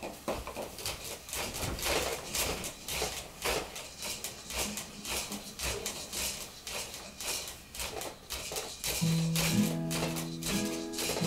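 Plastic toys and frame of a baby's activity bouncer clicking and rattling irregularly as the baby bounces and plays. About nine seconds in, an acoustic guitar starts playing sustained picked notes.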